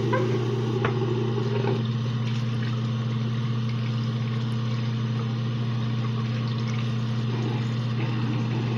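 Tap water running steadily into a sink as a makeup brush is rinsed under it, over a constant low hum.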